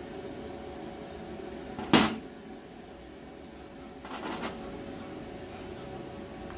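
Steady electrical hum of a welding machine, with one sharp loud crack about two seconds in and a brief rough burst about four seconds in.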